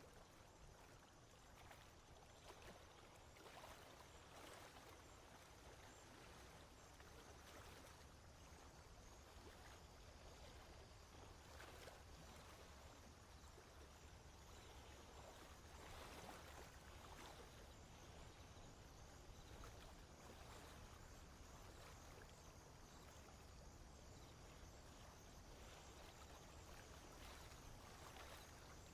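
Near silence: faint swamp ambience with soft, scattered water sounds.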